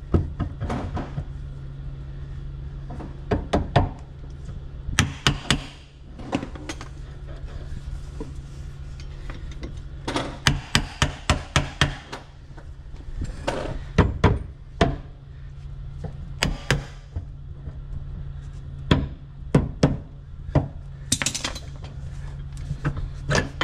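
Steel engine alignment tool knocking and clacking against the stern drive's gimbal bearing and engine coupler as it is pushed and worked back and forth, in runs of rapid knocks over a steady low hum. The tool won't slide into the coupler because the engine is out of alignment, with its front sitting low.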